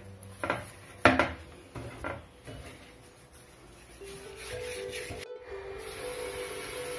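Hands rubbing and twisting wilted fireweed leaves to roll them for fermentation, giving a few short crackling rustles. From about four seconds in, background music with steady held notes takes over.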